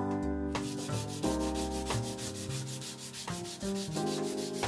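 Sandpaper rubbing on wooden hatchet handle scales in quick, even strokes, starting about half a second in, over background music.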